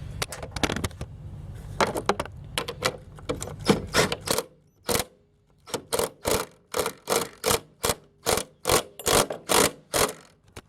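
Sharp metallic clicks and knocks from tools working the strut bar's locking nut as it is tightened, scattered at first and then coming about three a second in the second half, over a low hum early on.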